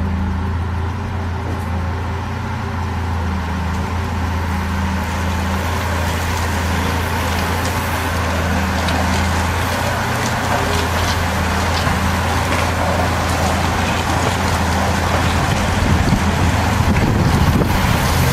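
Steady engine hum of a motor vehicle running, with a pack of road racing bicycles passing close; the whir of their tyres and drivetrains grows louder near the end.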